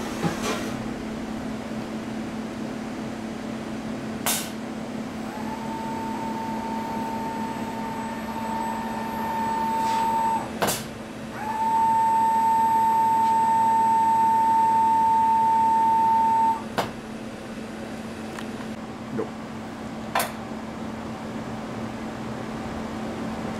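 2005 Prodis PDL-1500L vertical CNC machining centre running with a steady electrical hum. Twice a motor winds up into a steady whine that lasts about five seconds. A few sharp clicks from the machine fall in between.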